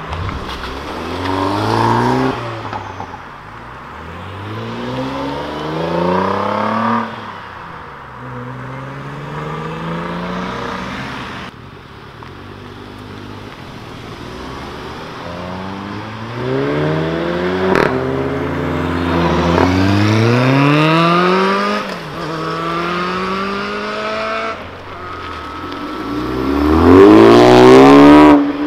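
Tuned hatchback cars accelerating hard away one after another. Each engine's pitch climbs through a gear and drops at the shift. There is one sharp crack partway through, and the loudest run comes near the end.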